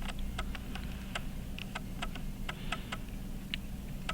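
Small, light metal clicks and taps at an uneven pace, about four a second, as tools work on the parts of a Waltham Model 1892 pocket watch movement being taken apart, over a steady low hum.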